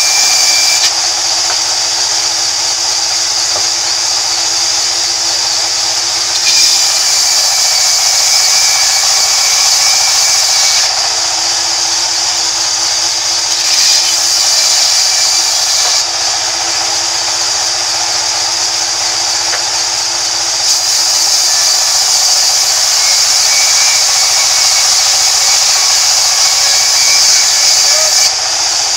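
Sawmill band saw running and cutting through a large wood slab, a steady high-pitched hiss over a lower motor hum. The hiss swells and eases several times.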